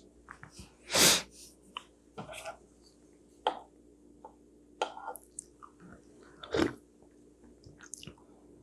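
Wooden chopsticks knocking and scraping against ceramic plates and bowls while picking at food: scattered short clicks and taps, the loudest about a second in.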